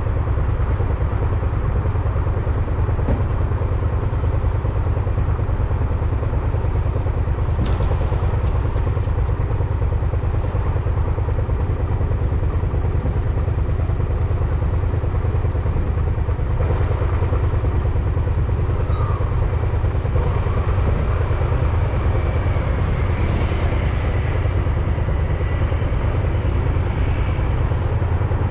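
Steady, loud low rumble of riding: wind and road noise on the microphone, unchanging throughout, with one sharp click about eight seconds in.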